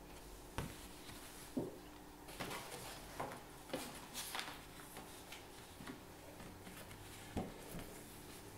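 Faint rustling and light knocks of paper picture cards being handled, set down and picked up, with a few sharper taps about half a second in, a second and a half in, and near the end.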